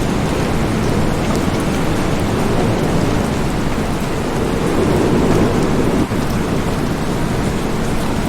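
Steady heavy rain falling, with a low rumble of thunder swelling about halfway through.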